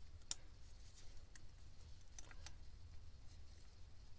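Faint, scattered sharp clicks of small screws and fingers working on the metal cover of a Yanmar 3YM30's raw-water impeller pump as it is being refitted, over a low steady hum.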